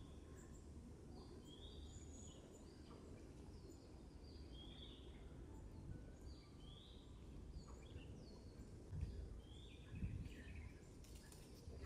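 Songbirds calling faintly: one bird repeats a short rising note every second or two, with fainter high chirps among it, over a low steady rumble. Two dull low thumps come about nine and ten seconds in.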